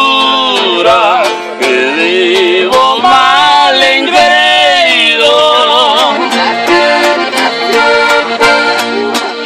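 Norteño music played live on a red button accordion carrying a wavering melody over the regular strummed chords of a bajo sexto.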